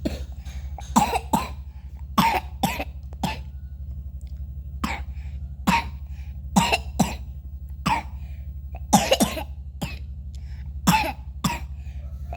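A young child coughing again and again in short harsh coughs, often two or three close together, over a steady low hum.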